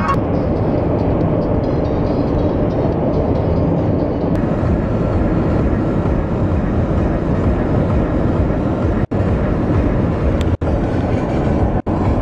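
Road noise inside a moving minivan's cabin at highway speed: a steady rumble of tyres and wind. It cuts out briefly three times near the end.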